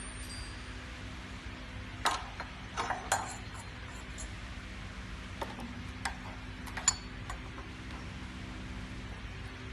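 Scattered sharp metal clinks and taps, about seven in all, as the steel punches, die and tools of a TDP-5 tablet press are handled and fitted during die installation.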